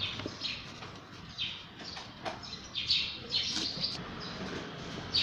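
Small birds chirping: a scattered series of short, high, falling chirps.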